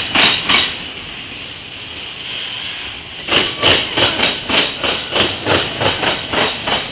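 Steel wheels of a passing CSX autorack freight train clacking rhythmically over the track, about three clacks a second. The clacks die away to a steady rolling rumble about a second in and return after about three seconds.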